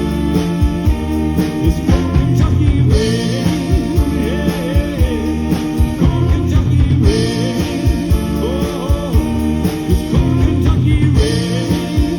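Live band playing a ballad with a steady drum beat, bass and guitar, with a voice singing over it.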